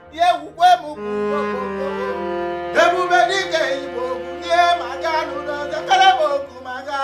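Background film-score music: sustained chords with a singing voice over them.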